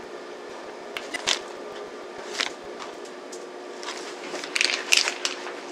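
Plastic piping bag crinkling and squishing in short bursts as frosting is piped onto a cake, busiest near the end, over a steady low hum.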